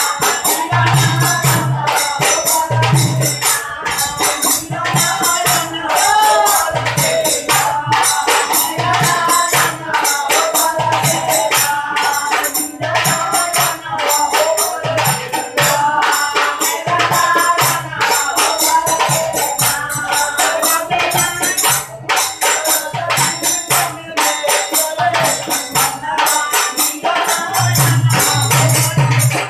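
Live folk music: singing over a drum and jingling hand percussion that keep a quick, steady beat.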